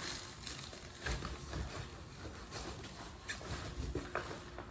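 Scattered knocks, scrapes and rustles of a person climbing over stacked pallets of cardboard boxes wrapped in plastic stretch film.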